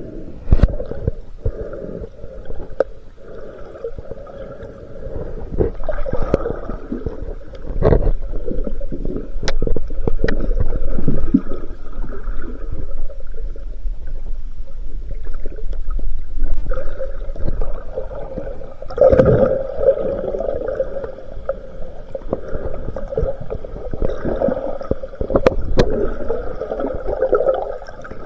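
Muffled underwater sound picked up by a camera in a waterproof housing: water moving and gurgling against it, with a steady low drone underneath and several sharp knocks or clicks, the loudest at about 8 and 25 seconds in.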